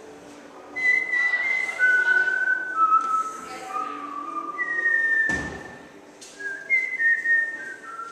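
A person whistling a tune, a run of clear notes stepping down in pitch, with a single sharp knock a little past the middle.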